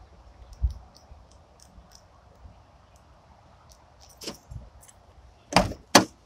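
A few faint clicks and a sharp knock, then two loud sharp knocks about half a second apart near the end.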